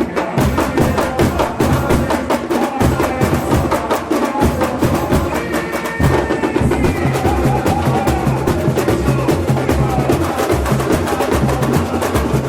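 Samba bateria playing a fast, busy groove: deep bass drums under rapid snare and small high-pitched hand-drum and wood-block strikes. The bass drums come in much heavier about halfway through.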